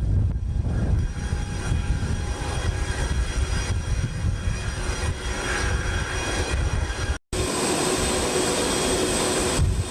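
Running jet aircraft engines: a steady low rumble, then after a brief dropout about seven seconds in, a steady hiss with a high whine.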